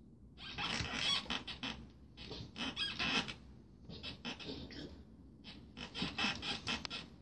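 Kittens' claws scrabbling and scratching on a carpeted cat tree as they wrestle, in four rapid bursts of scratchy rustling with short pauses between.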